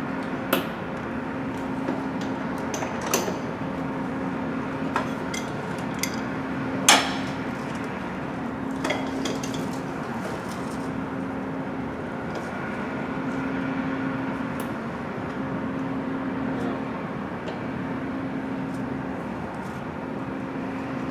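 Metal hand tools clinking and knocking against the car's A/C line fittings as they are worked loose: a few scattered sharp clinks, the loudest about seven seconds in. Under them runs a steady hum that swells and drops away about every two seconds.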